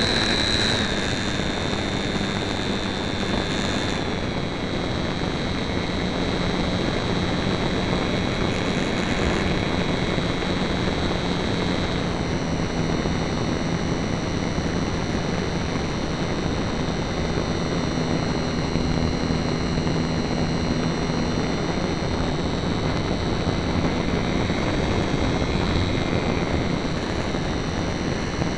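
Electric motor and propeller of a HobbyZone Super Cub RC airplane running in flight, heard from a camera on board: a steady whine that shifts slightly in pitch a few times, over rushing wind noise.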